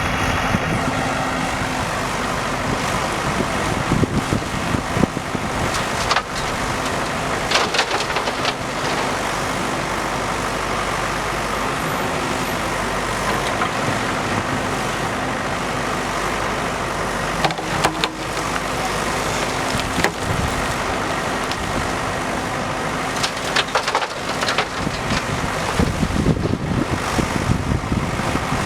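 Diesel engine of a JCB backhoe loader running steadily while working, with occasional sharp knocks and clanks.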